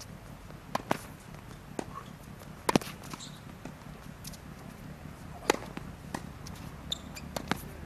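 Tennis balls struck by rackets and bouncing on a hard court: sharp, short pops at irregular intervals, the loudest just under three seconds in and another strong one about five and a half seconds in, when a serve is being hit.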